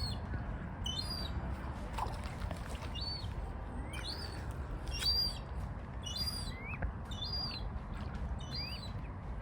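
A seagull giving short, high-pitched calls over and over, about one a second, some starting with a quick upward slide.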